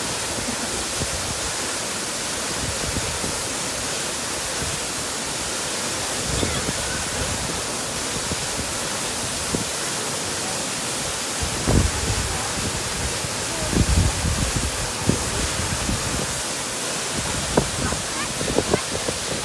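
Waterfall pouring into a plunge pool: a steady rushing hiss, with a few short low thumps in the second half.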